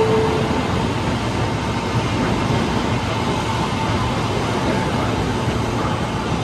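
Ampang line light rail train passing close by on ballasted track, giving a steady running noise from its wheels on the rails. A brief tone sounds right at the start.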